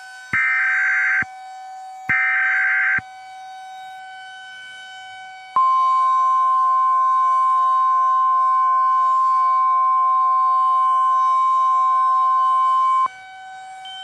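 Emergency Alert System tornado-warning tones. First come two short electronic data bursts of the SAME header, each just under a second long. After a few seconds' gap, a single steady warning alarm tone starts abruptly, is held for about seven and a half seconds, then cuts off. A quieter steady tone hums underneath.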